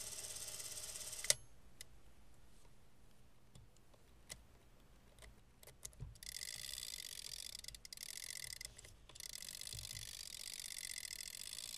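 Paillard Bolex spring-wound movie camera: its clockwork drive running and stopping with a sharp click about a second in, followed by a few handling clicks. From about six seconds the side winding crank ratchets steadily as the spring is wound up, with a brief break near nine seconds.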